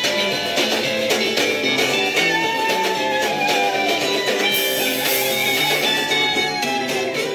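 Music with plucked guitar playing a melodic line over a steady band.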